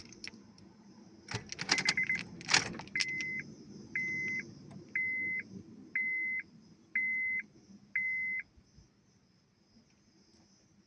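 Keys jangling, then the Honda Civic's electronic warning chime beeping about seven times, once a second, with the beeps evenly spaced and all at the same pitch, before it stops.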